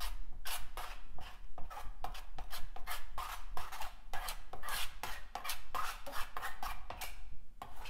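Palette knife scraping and spreading acrylic paint across a stretched canvas in quick repeated strokes, about two to three a second, with a few brief pauses.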